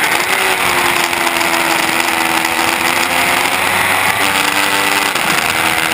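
2015 Yamaha R3's 321 cc parallel-twin engine with an aftermarket muffler, running hard at high revs on track. Heavy wind rushes over the camera microphone. The engine pitch dips about four seconds in and then climbs again.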